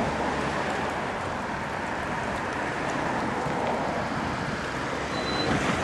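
Steady, even rushing noise, with a brief high tone about five seconds in.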